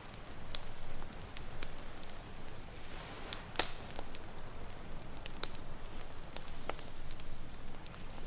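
Wood campfire crackling, with scattered sharp pops, the loudest a little over three and a half seconds in, over a steady low wash of ocean waves.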